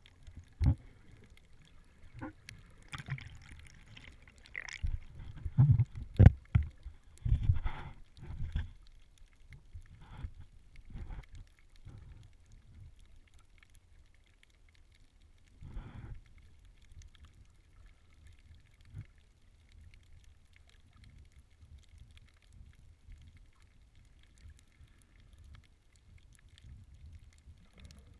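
Muffled water noise picked up by a camera held under water while snorkeling: irregular swishes, gurgles and knocks of water and the swimmer's strokes against the camera, busiest in the first ten seconds, with one more burst about sixteen seconds in, then a faint low rumble.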